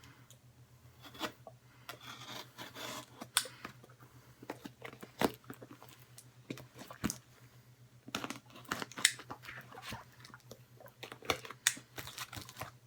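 A parcel being opened by hand: tape and cardboard tearing and packaging rustling, with many scattered sharp clicks and knocks.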